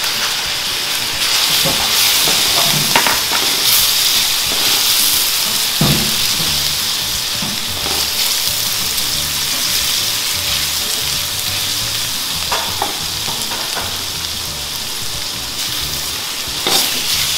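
Shrimp, diced Chinese sausage, garlic and onion sizzling in hot oil in a stainless steel wok, stirred with a spatula that scrapes against the pan a few times.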